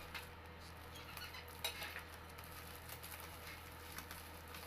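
Clear plastic packaging crinkling and rustling as a wrapped office-chair part is handled, with scattered light clicks and one sharper one about a second and a half in, over a steady low hum.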